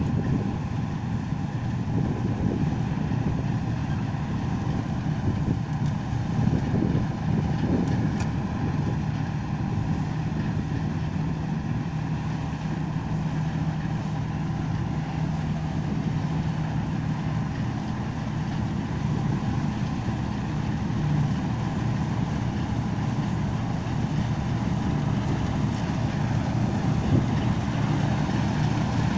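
Bizon Z056 combine harvester running while it cuts wheat: a steady machine drone with a low, even hum.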